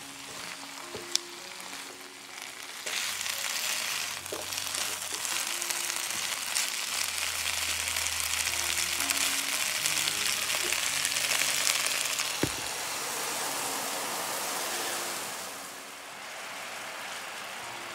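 Food sizzling in a hot frying pan, starting about three seconds in and easing off near the end, with a couple of sharp clicks, over soft background music.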